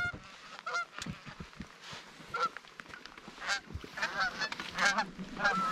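Canada geese honking: many short, overlapping honks and clucks from a flock flying in, getting busier over the last couple of seconds.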